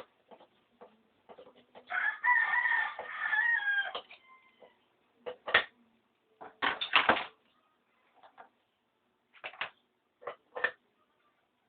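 A rooster crowing once, a call of about two seconds starting about two seconds in, followed by scattered short sharp clicks and knocks.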